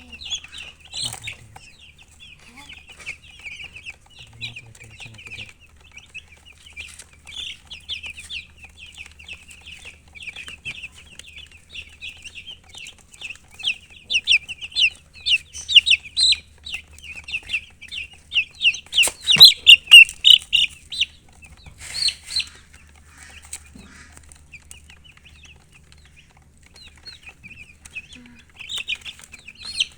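Baby chicks peeping: many short, high, falling peeps in quick succession. The peeping grows louder and busier about halfway through, with a sharp click about two-thirds of the way in.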